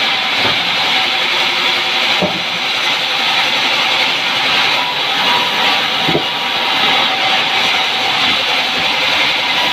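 Sawmill band saw running as its blade cuts lengthwise through a mahogany log: a steady rushing saw noise with a faint steady whine. Two brief knocks come about two seconds and six seconds in.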